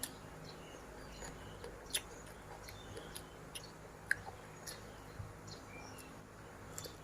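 A person chewing food close to the microphone: scattered soft wet clicks and crunches. Faint bird chirps in the background.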